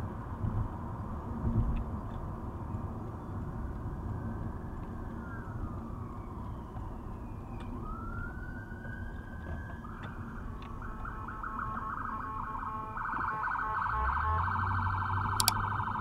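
Emergency vehicle siren heard from inside a moving car over road noise: a slow rising and falling wail, then from about ten seconds in a fast yelp that gets louder.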